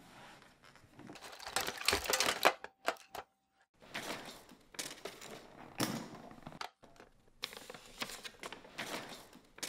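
Sheets of paper rustling and sliding as they are handled and laid out, in several bursts with a few sharp clicks and a brief pause about three seconds in.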